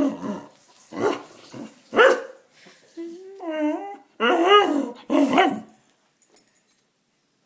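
Dog vocalising on the 'speak' command while crying for food: about six short, bending yelps and whiny barks, with one longer drawn-out whine near the middle.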